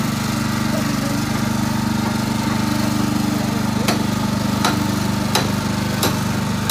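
Small engine of a rail coach-screw driving machine running steadily. About two-thirds of the way in, sharp clicks begin, roughly one every 0.7 seconds.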